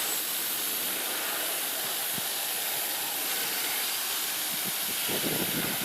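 High-pressure water from a power sprayer hissing steadily as it jets dirt off the parts of a disassembled window-type air conditioner.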